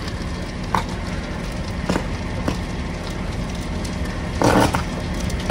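Heavy fire burning through a wood-framed house: a steady rush of flame over a low rumble, broken by sharp cracks and pops of burning wood every second or so, with a louder, longer burst of crackling about four and a half seconds in.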